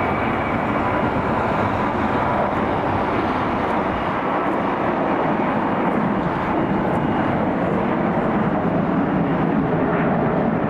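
Jet airliner engines, a loud, steady noise.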